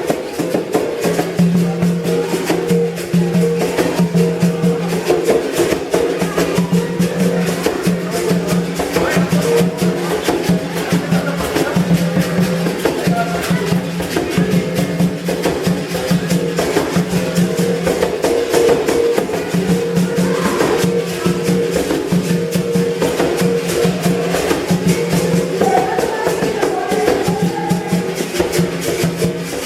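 Capoeira berimbau music: the steel string struck in a steady rhythm with a stick, ringing a low note, with the caxixi basket rattle shaken alongside.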